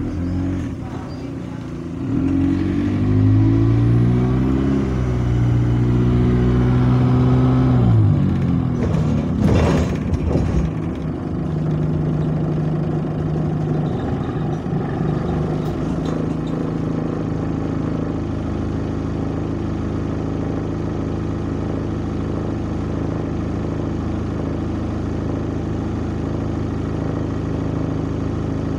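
A bus's diesel engine heard from inside the rear of the saloon, revving up as it pulls away, with a faint high whistle rising with it that the uploader puts down to a turbo air leak. The revs drop about eight seconds in, a short knock follows, and the engine then runs steadily.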